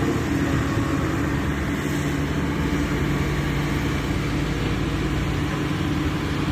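Road roller's heavy diesel engine idling steadily at an even pitch.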